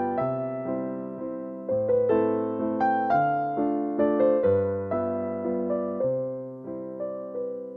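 Background music played on piano: a melody over a bass line, each note struck and fading away.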